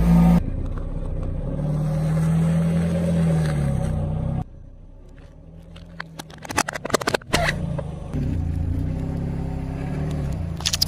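Car engine running at low speed while its tyre rolls slowly over objects on asphalt. After a drop in level, a burst of sharp crunching and crackling comes about six to seven seconds in, as the tyre breaks a thin brittle sheet. The engine hum returns afterwards, with a few more sharp cracks near the end.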